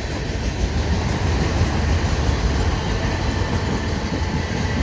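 Freight cars of a CN mixed freight train passing at speed, their steel wheels running steadily on the rails with a deep, even noise.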